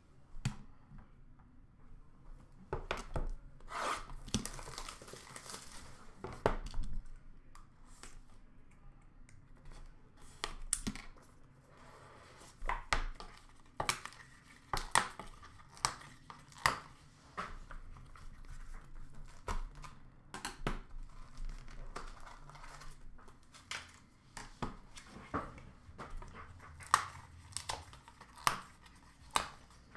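Trading-card packaging being torn and crinkled while cards and plastic card cases are handled: short rustling tears mixed with many sharp clicks and taps, coming in irregular bursts.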